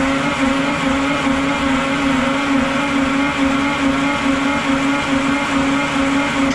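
Detroit Diesel 12V71TT two-stroke V12 diesel engine, loud and steady with a slow, even pulsing in its low tone, cutting off abruptly near the end.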